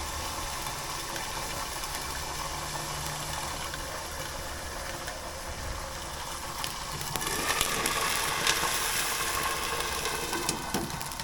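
Sago worms deep-frying in hot oil: a steady sizzle over the low hum of the gas flame, turning louder with sharp crackling pops about seven seconds in.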